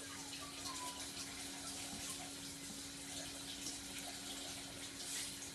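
Steady background hiss with a constant low hum, and a few faint light ticks and scrapes as a metal bracket is handled against the intercooler.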